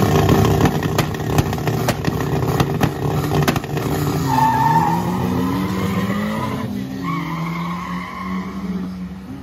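Drag-race Chevrolet Chevette's engine held at high revs on the start line with sharp crackling pops. About four seconds in it launches and pulls away, its pitch sweeping up and dropping through the gear changes and growing fainter down the strip.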